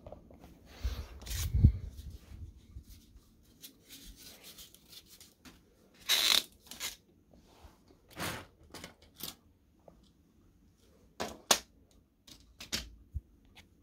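Close handling noises: a run of short scrapes, rustles and clicks at irregular intervals, with a heavier thump about one and a half seconds in.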